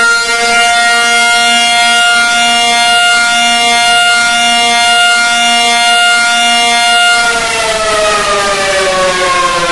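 Civil-defence-style alarm siren with a rich, buzzy tone, held at a steady pitch and then winding down about seven seconds in.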